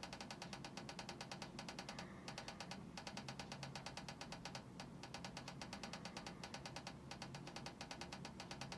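Faint, rapid, evenly spaced clicking, likened to Morse code, that runs on with a few brief breaks over a low steady hum.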